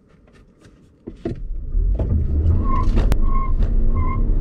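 Toyota RAV4 plug-in hybrid accelerating hard from a standstill, heard inside the cabin: quiet at first, then about a second in a sudden rise to a loud, steady low rumble of drivetrain and road noise as it pulls away. Three short beeps sound near the end.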